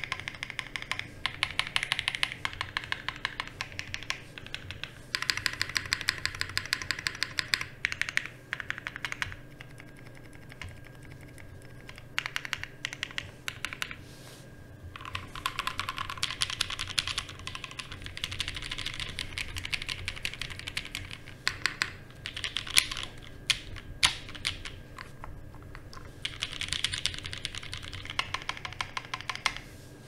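Typing test on an Ozma60, a top-mount aluminium 60% mechanical keyboard fitted with GMK white-on-black keycaps: runs of fast key clacks broken by short pauses, with a few louder single key strikes about two-thirds of the way through.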